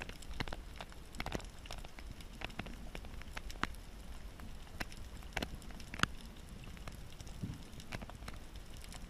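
Underwater ambience heard through a submerged camera: scattered sharp clicks and crackles, a few a second, over a low steady rumble of the water, with one louder click about six seconds in.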